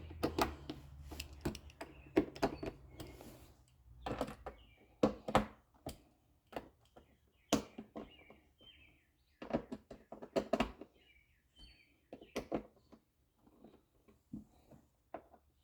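Scattered clicks and knocks of screws being driven and the plastic air filter housing lid being handled as it is fastened back down, with birds chirping faintly.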